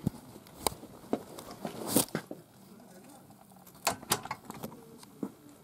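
Handling and movement noise: scattered clicks and taps with rustling, a brushing swish about two seconds in and two sharper clicks near four seconds.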